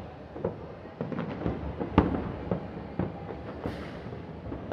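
A fireworks display: aerial shells bursting as an irregular string of booms and bangs over a low rumble. The loudest bang comes about two seconds in.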